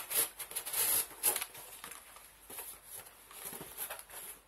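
A cardboard box scraping and a fabric soft case rustling as the case is pulled out of the box. The rustling is loudest in the first second and a half, then fainter and scattered.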